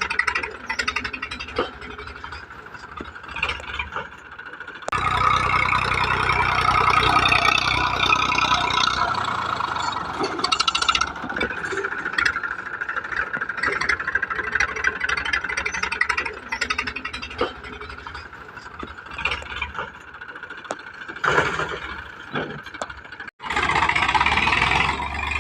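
Massey Ferguson tractor engine running, with the sound changing abruptly about five seconds in and again near the end.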